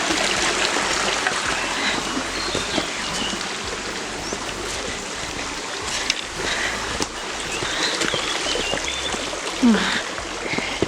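Water rushing steadily down a waterfall stream, an even hiss with a few faint knocks.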